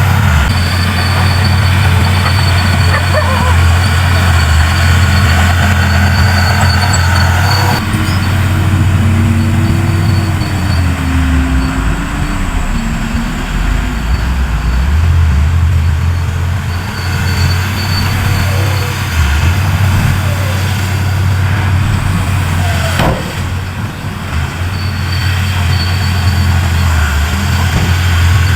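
Large diesel engines of heavy earthmoving machinery running steadily, a deep continuous rumble whose character shifts abruptly a couple of times.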